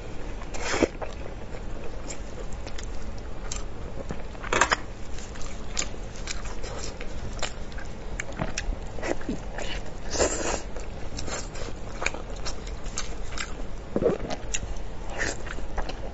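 Close-miked eating sounds of a person biting and chewing braised spicy pork elbow: many short wet smacks and clicks, with a few louder bites scattered through.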